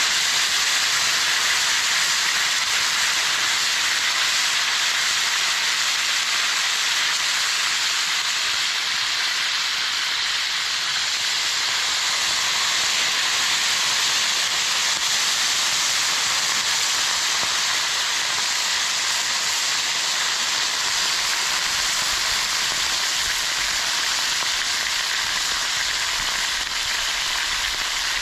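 Pheasant sizzling and steaming in a cast-iron pan of red wine vinegar over hot coals: a steady hiss.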